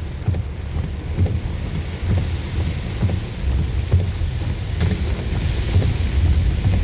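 Car driving in heavy rain on a flooded street: a steady low rumble of the car and tyres through water, with the hiss of rain.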